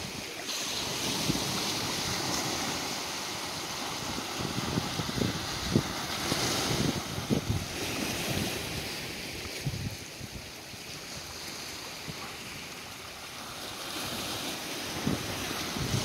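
Small sea waves breaking and washing on the shore, with wind buffeting the microphone in irregular gusts.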